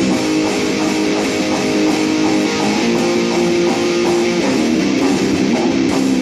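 Dean Dime Floyd ML electric guitar playing continuously, a line of held notes that change in pitch.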